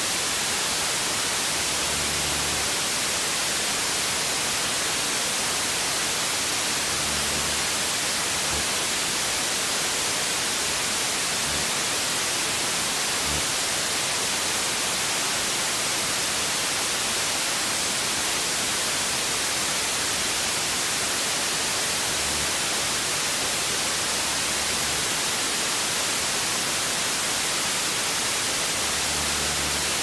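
TV static: a steady, even hiss of white noise, brightest in the high end, holding the same level throughout.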